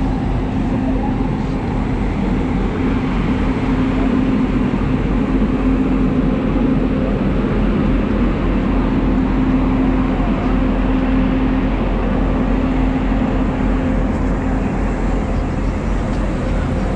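Steady hum of an Indian Railways WAP-7 electric locomotive standing at the platform, a constant drone holding one pitch, with the general noise of the busy platform underneath.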